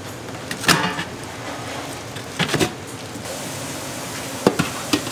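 Cooking clatter at a chicken-feet grilling stall: a few sharp knocks, the first ringing briefly, over a steady hiss.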